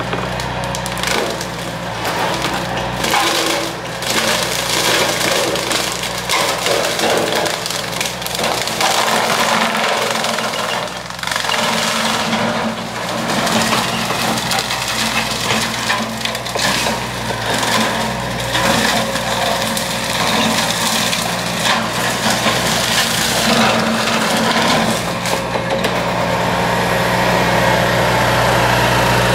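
Excavator-mounted hydraulic brush cutter, its piston-motor-driven blades chopping and splintering brush and saplings in a continuous crackle, over the steady hum of the excavator's engine and hydraulics.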